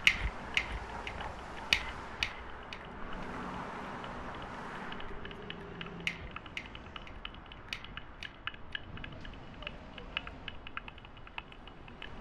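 Irregular clicking and ticking, a few sharp loud clicks among many faint ones, over a steady low hiss.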